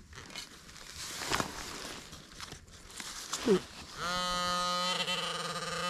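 A few short knocks from digging, then from about four seconds in a metal detector's flat, steady, buzzy tone, held for about two seconds with one brief break. It sounds over a strong buried metal target.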